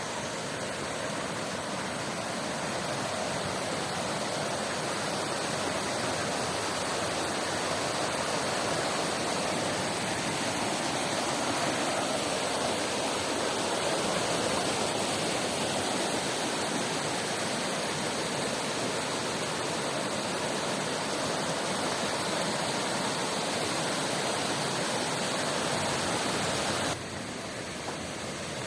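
Steady rushing water of a mountain river and waterfall, dropping suddenly a little quieter near the end.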